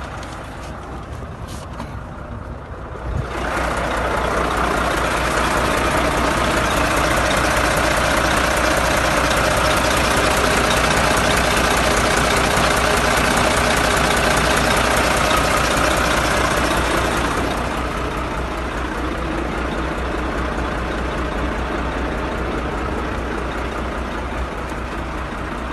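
Volvo FH13 truck's inline-six diesel engine running with a steady low pulse. It comes up louder about three seconds in and eases back at about seventeen seconds. The engine has a reported knock, and the mechanic links it to antifreeze getting into it, shown by white smoke and a wet turbo.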